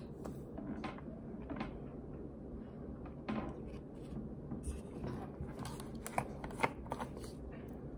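Close-up crunching and crackling of chunks of starch being chewed, with a few sharper clicks a little after halfway through.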